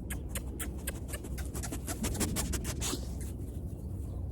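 Run of quick, sharp kissy lip-smack noises, the conditioned alert sound used to call a dog's attention back to the trainer. The smacks come faster and closer together from about a second and a half in, ending with a short soft hiss near three seconds.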